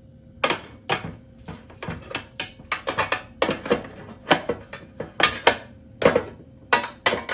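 Metal grill tray and utensils clattering, many quick irregular knocks and scrapes starting about half a second in, as the tray of lamb chops is handled and put back into the oven grill.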